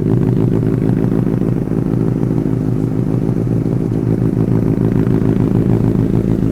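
Benelli TNT 600i's inline-four engine idling steadily just after a cold start, still cold at about 28 degrees, through an aftermarket IXIL exhaust; very loud and grunty.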